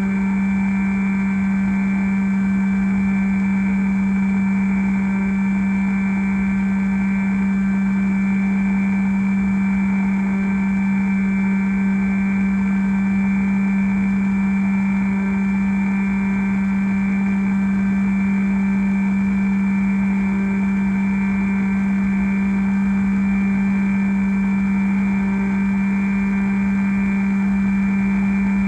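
Bixler v1.1 model plane's electric motor and pusher propeller running at a steady throttle, a constant hum with no change in pitch, heard from the camera on the plane with wind rush underneath.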